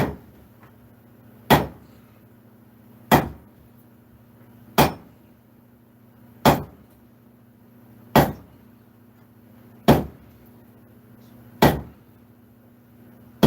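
A 26 lb two-handled sledgehammer, swung by two strikers together, lands about nine heavy blows in a steady rhythm, roughly one every 1.7 seconds. Each blow is a sharp metallic impact with a brief ring.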